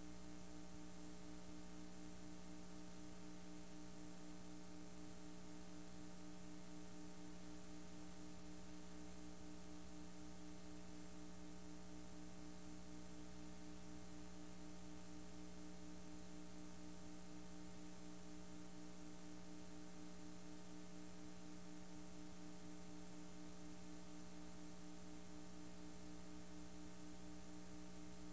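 Faint, steady electrical hum with a few fixed tones over even hiss, from a blank stretch of a VHS tape transfer after the program has ended.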